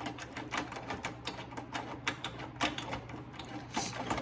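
Rapid, irregular clicking and rattling of metal parts, typical of a table saw's blade-height crank being turned, over a steady low hum.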